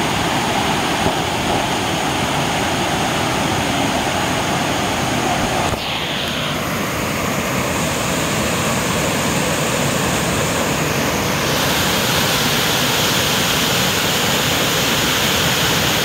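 Water pouring over a stepped concrete reservoir weir, a steady loud rush of falling water; its tone shifts slightly about six seconds in.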